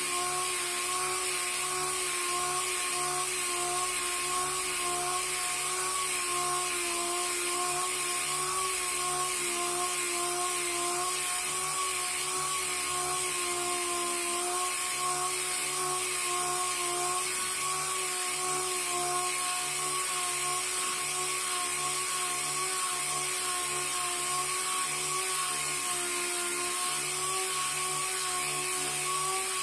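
Handheld orbital sander running at a steady whine with a high hiss, its pad sanding a turned wooden furniture leg.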